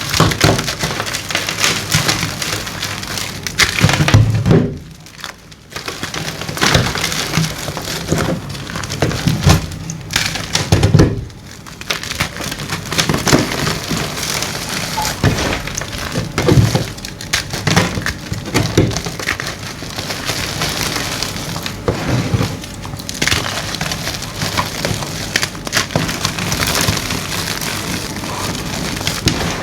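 Gym chalk being crushed and crumbled: a dense run of dry crunches and sharp crackles, with two short lulls about five and eleven seconds in.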